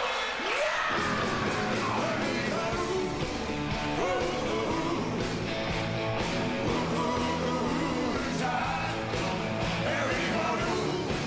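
Rock and roll music with singing and guitar, the bass and drums coming in about a second in.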